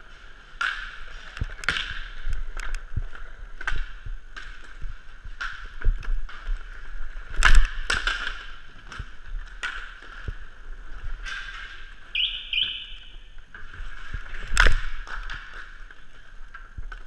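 Inline skate wheels rolling on plastic sport-court tiles, with repeated sharp clacks of hockey sticks on puck and floor; the two loudest cracks come about seven and a half and fifteen seconds in.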